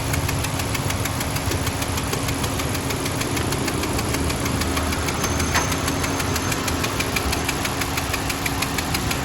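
Honda Civic engine running steadily with a rapid, even ticking clatter over the engine note: the abnormal engine noise being diagnosed.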